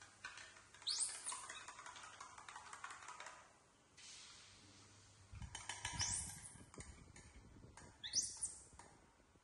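Baby macaques giving short, high squeaks that rise sharply in pitch, three times, over light clinks and scrapes of a spoon on a plastic plate.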